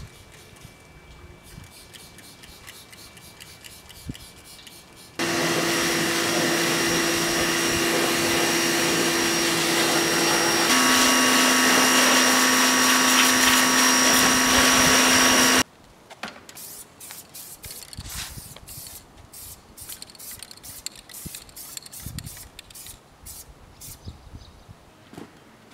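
A pressure washer runs steadily for about ten seconds, spraying water onto a dirt bike, with a motor hum that drops in pitch about halfway through, then stops abruptly. It is quieter before and after, with scattered clicks and handling sounds.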